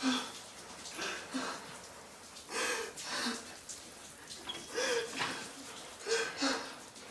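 A person's heavy breathing with voiced gasps, in short separate bursts about a second or so apart.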